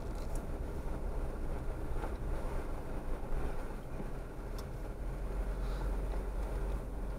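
Off-road vehicle driving slowly over a rutted dirt trail: a steady low engine and tyre rumble with a few light knocks.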